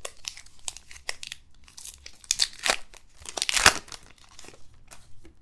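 A baseball card pack's wrapper being torn open and crinkled by hand: a run of crackling rustles, with the loudest rip about three and a half seconds in.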